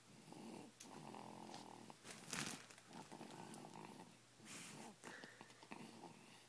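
A person snoring softly in a slow rhythm: each breath a buzzing rattle of about a second, followed by a short breathy hiss, repeating about every two and a half seconds.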